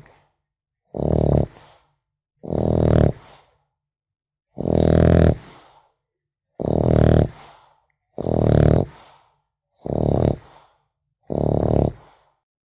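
French bulldog puppy snoring in its sleep: about seven rattling snores, one roughly every second and a half, with silence between breaths.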